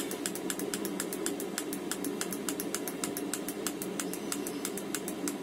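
Fuel dosing pump of a Chinese-made Webasto-style diesel air heater ticking evenly about three times a second, over the steady hum of the heater's fan. The pump is pulsing at about 3 Hz because the heater has been turned up to full power.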